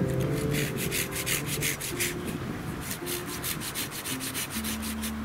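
Small hand saw cutting through green birch wood in quick, even back-and-forth strokes that stop about four and a half seconds in.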